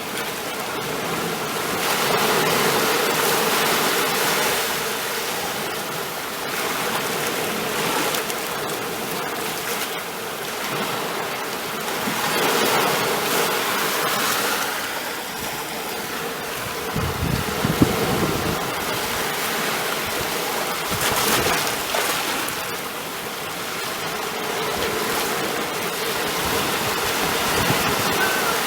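Ocean waves washing ashore, the surf noise swelling and falling back every few seconds. A little past halfway there is a short low rumble with a brief knock.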